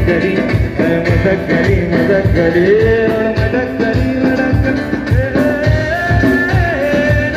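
Live band music: a male voice singing long, sliding held notes over an acoustic guitar and a drum kit keeping a steady beat.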